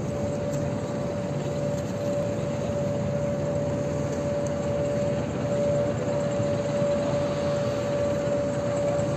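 Airport machinery running steadily, heard as an even rushing drone with a constant mid-pitched whine over it.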